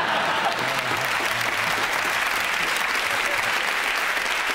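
Studio audience applauding steadily after a punchline, with some laughter mixed in at the start.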